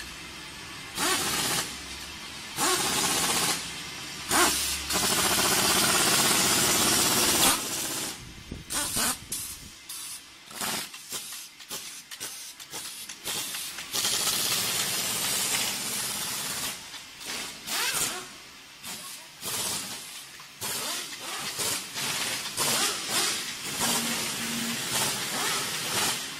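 Pneumatic assembly tools and air lines hissing with compressed air in bursts of varying length: a few long ones in the first third, then many short, quick ones.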